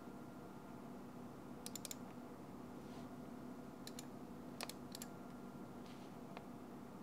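Faint clicking at a computer: a quick cluster of sharp clicks about two seconds in, then a few single and paired clicks around four to five seconds, over a faint steady electrical hum.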